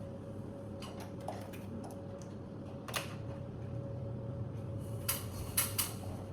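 Scattered light clicks and small knocks from handling the panel and its parts, with a sharper click about three seconds in and a quick cluster near the end, over a steady low hum.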